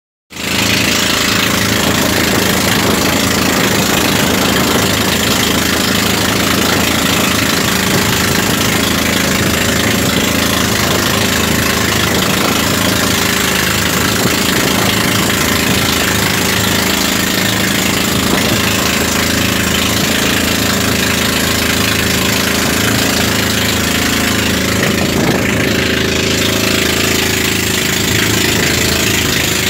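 Outrigger boat's engine running steadily under way, with the rush of wind and water spray, heard from on board.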